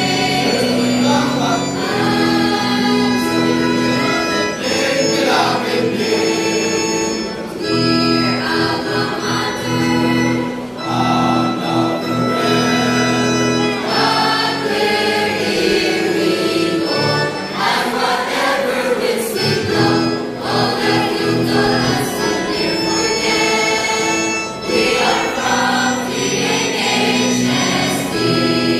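Mixed choir of teenage boys and girls singing a song together in long held notes.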